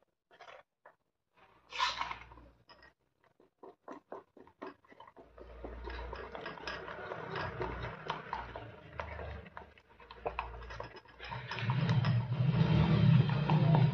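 A spoon stirring rice batter in a small steel bowl, mixing in food colour, with scraping and clinking against the metal. First come a few separate clicks as the bowl and spoon are handled, then continuous stirring that gets louder over the last few seconds.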